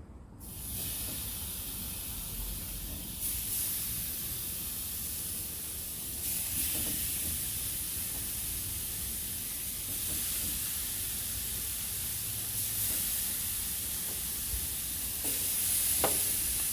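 Bacon-topped pork loin chops sizzling on a hot barbecue grill at about 350 degrees, a steady hiss that starts just after the opening.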